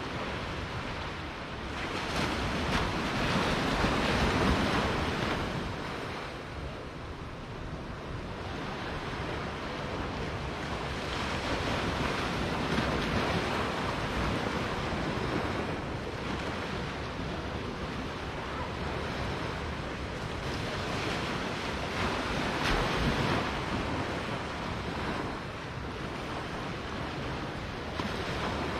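Small surf breaking and washing up on a sandy beach, the wash swelling and easing every several seconds, with wind rumbling on the microphone.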